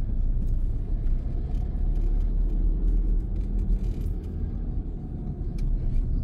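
Low, steady rumble of a car driving slowly through town: engine and road noise heard from inside the car.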